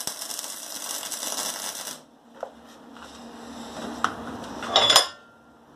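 Electric welding arc crackling for about two seconds during a tack weld on the steel burner pipe, then stopping abruptly. A few light taps follow, and near the end a ringing metallic clank as the steel parts are handled.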